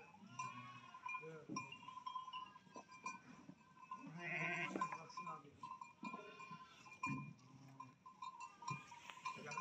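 Flock animals bleating, several separate calls one after another, with one louder, longer call about four seconds in.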